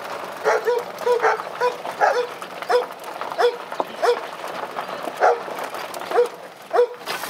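An animal calling over and over, about a dozen short calls at an uneven pace.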